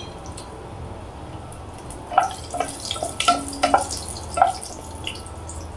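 Bay leaves and broken dried red chillies frying in hot mustard oil: a low steady background, then a quick run of sharp crackles and spits for a couple of seconds in the middle.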